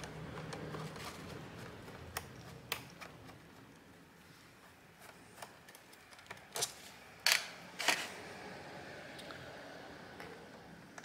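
Small sharp clicks and taps of a screwdriver and tweezers working loosened screws out of a laptop's bottom cover, a handful of separate clicks with the loudest two close together about seven to eight seconds in. The screws are loose but stick in their holes instead of lifting out.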